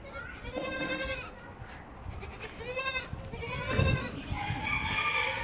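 Young Sojat goats bleating, several wavering calls one after another, the last one longer and overlapping with another.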